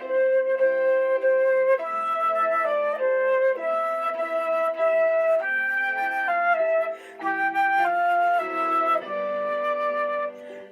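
Electronic keyboard playing a melody in a flute voice over sustained lower accompaniment notes, with a brief dip in the playing about seven seconds in.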